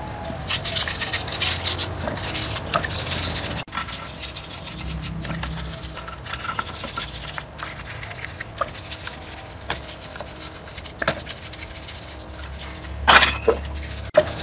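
Hands scrubbing wet metal machine parts with detergent powder: irregular rubbing and scraping, with scattered clicks of parts being handled and a louder knock near the end.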